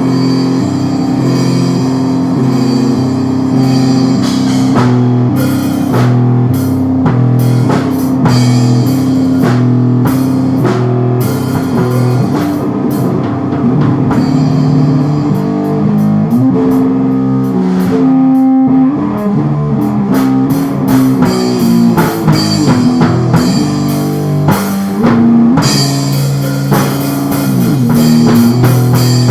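Instrumental lo-fi rock: guitars playing over a drum kit, with a brief sparser break around the middle.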